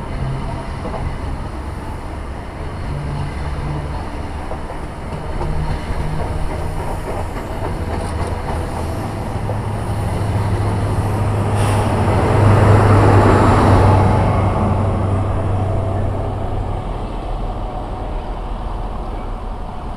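Train passing: a steady low engine hum and the rumble of wheels on rails, which build to their loudest about two-thirds of the way through and then ease off.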